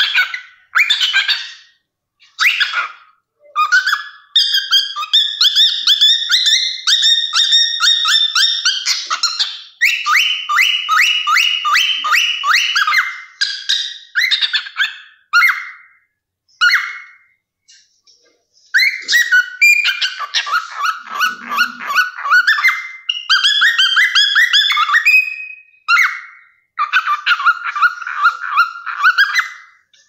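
Cockatiel singing and chattering: phrases of a few seconds made of rapid, repeated chirping notes, with a short pause a little past halfway.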